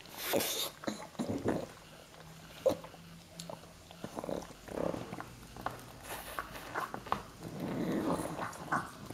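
A pug chewing and gnawing a dried bull pizzle (bully stick): irregular crunching and clicking of teeth on the hard chew, with a louder low rumbling sound about eight seconds in.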